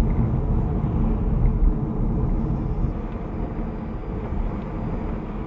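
Cabin road noise of a small car driving, recorded by a dashcam's built-in microphone: a steady low rumble of tyres and engine that grows gradually quieter.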